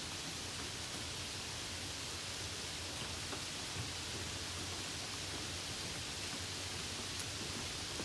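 Heavy rain falling steadily: an even, unbroken hiss with the odd faint drop tick.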